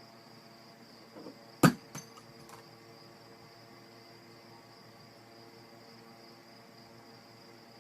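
A single sharp knock about a second and a half in, followed by two lighter clicks, over a steady high-pitched whine and a low hum.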